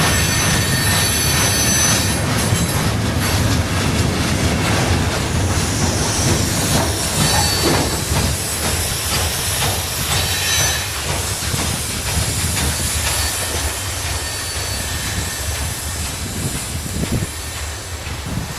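Train cars rolling past on the rails, with high-pitched wheel squeal coming and going and clicking wheels over rail joints; the sound slowly fades toward the end.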